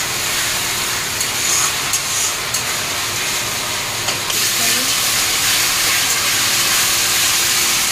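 Spice paste, tomato and potato pieces sizzling in hot oil in an aluminium kadai as a metal spatula stirs them: a steady frying hiss while the masala is sautéed (kosha).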